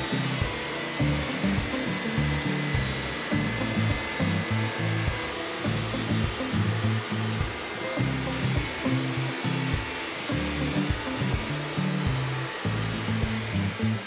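Wood-Mizer LT40 portable bandsaw mill sawing through a Douglas fir log, a steady whir of blade and mill. Background music with a changing bass line plays over it.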